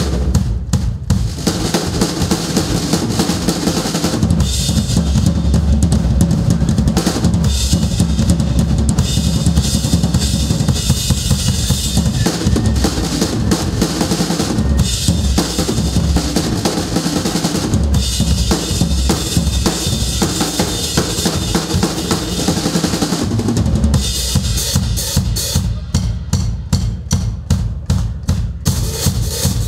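Acoustic drum kit played live: bass drum, snare and cymbals keeping a steady, driving beat. Near the end the playing thins to evenly spaced sharp hits, about four a second.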